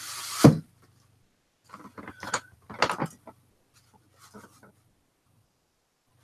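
Handling noise: a rising rustle that ends in a sharp thump about half a second in, then a few scattered rustles and clicks.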